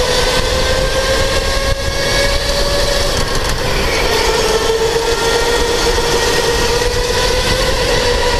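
Electric go-kart motor whining under way, its pitch climbing, dipping a few seconds in, then climbing and easing again as the kart speeds up and slows for corners, over a steady low rumble of the kart on the track.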